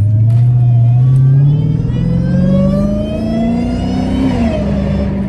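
Dodge Challenger Hellcat's supercharged V8 accelerating, its pitch rising steadily for about four seconds with a rising high whine over it, then dipping briefly about four seconds in.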